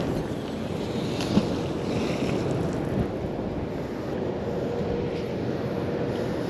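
Steady wind noise buffeting the microphone by the water. A faint splash partway through is a thrown magnet landing in the pond.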